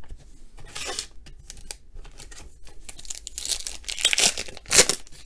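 Foil wrapper of a 2019 Donruss Optic baseball hobby pack being crinkled and torn open by hand. It crinkles about a second in and rustles more heavily later, and the loudest, sharpest rip comes near the end.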